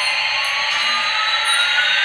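Toy airliner's electronic jet-engine sound effect: a steady hiss with a thin whine that rises slowly in pitch, like engines spooling up.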